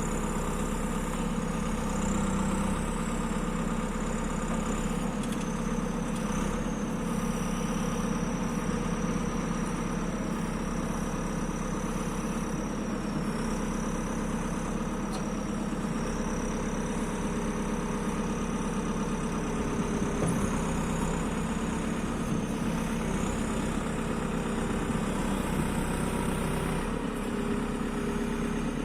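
JCB 3CX Super backhoe loader's four-cylinder diesel engine idling steadily, with a thin high whine above it that wavers slightly in pitch.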